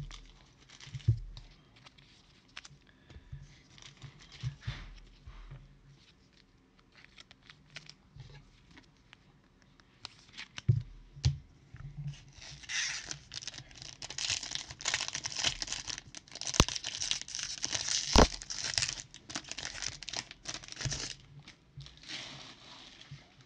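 A trading-card pack's wrapper being torn open and crinkled by hand: a few light taps and clicks first, then from about halfway a dense stretch of tearing and crinkling with a couple of sharp snaps, fading shortly before the end.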